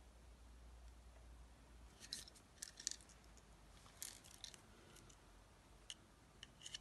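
Faint metallic clicks and taps as two car keys are handled in the hand, in a few quick clusters about two seconds in, about four seconds in and near the end, over near silence.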